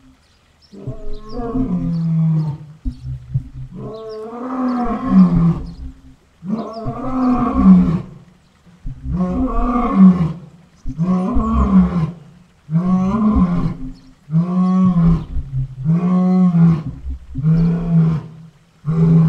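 A lion roaring: a bout of about ten long, loud calls in a row, one every one and a half to two seconds.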